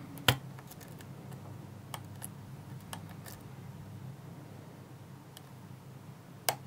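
Steel lock pick and tension tool clicking against the pins inside a 6-pin Trioving switch lock: a few sharp clicks, the loudest about a quarter second in and another near the end, with faint ticks between.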